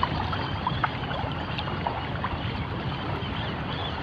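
Small waves lapping and washing at the shoreline, a steady wash of water with scattered light ticks.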